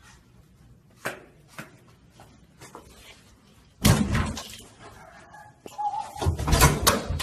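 A hotel room door slams shut about four seconds in, with a hard echoing bang. Near the end comes a louder cluster of bangs and thumps at the door.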